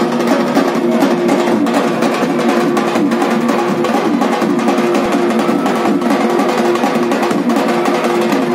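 Fast, unbroken drumming on shoulder-slung drums beaten with sticks, with a wavering melody line running through it.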